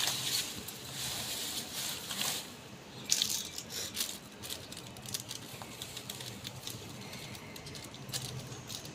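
Wet clothes squishing in a plastic tub of water as they are handled, then, from about three seconds in, the crinkling and crackling of a plastic detergent packet being opened and tipped over the tub.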